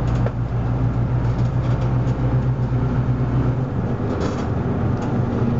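Leyland Atlantean AN68D/1R bus with a Gardner diesel engine running steadily at cruising speed, heard from inside the saloon with light body rattles. The deepest part of the drone eases a little about three and a half seconds in.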